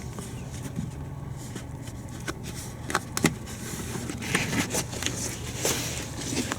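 Handling of car door trim parts: a few sharp clicks and knocks, then scraping and rustling, over a steady low hum.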